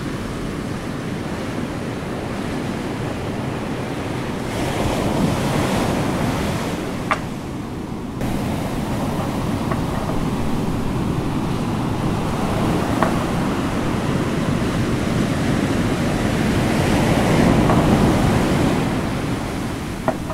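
Steady rushing noise, like surf, swelling and easing slowly, with a few faint clicks.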